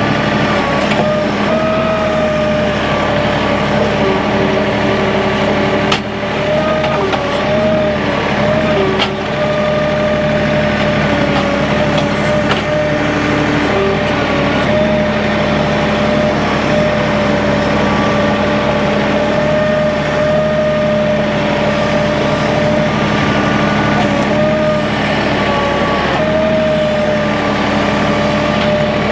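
An engine running steadily under load, with a constant whine above it that dips briefly in pitch now and then.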